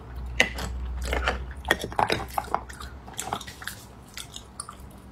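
Close-miked chewing of raw oyster: irregular mouth clicks and smacks, thinning out after about three seconds.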